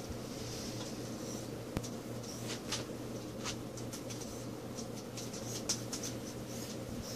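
Light, scattered scratching and rustling from a dog and a pet rat at the rat's wire cage, with one sharp click about two seconds in. A steady low hum runs underneath.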